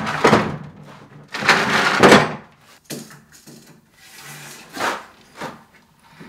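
Plywood sheets being handled and set against a wall: a series of wooden knocks and thuds, the loudest about two seconds in.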